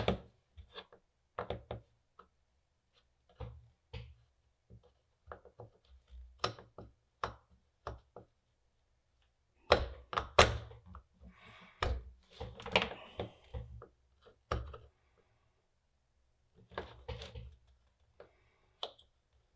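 Scattered light knocks, taps and clicks as a plastic LED bulb housing is handled and braced on the bench while a soldering iron tip is worked into its solder joints, most busy about ten to thirteen seconds in.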